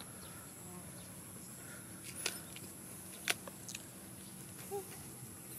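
Quiet outdoor background with a steady high-pitched insect drone, broken by a few sharp clicks about two and three seconds in and one short faint squeak near the end.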